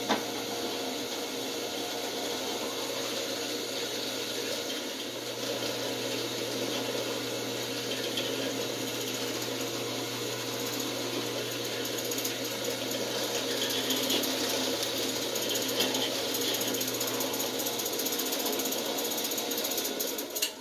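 Benchtop drill press motor running steadily at 500 RPM while a bit is fed down into a wooden board to bore holes. The hum cuts off suddenly at the end as the machine is switched off.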